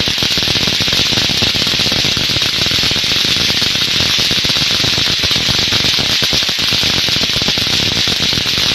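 Loud, harsh hiss with dense irregular crackling throughout, like heavy radio static, cutting in abruptly and holding steady.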